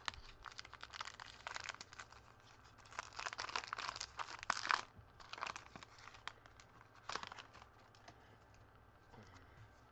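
A trading-card pack wrapper crinkling and being torn open: irregular runs of crackles that die down near the end.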